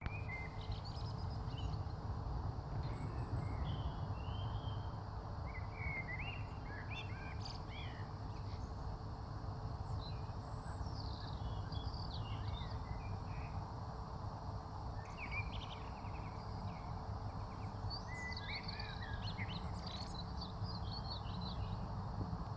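Wild birds chirping and twittering in scattered bursts every few seconds, over a steady low rumble of background noise.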